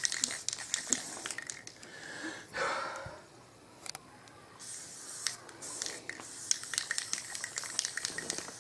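Aerosol spray-paint can spraying, a steady hiss from about halfway through, among scattered clicks and rattles.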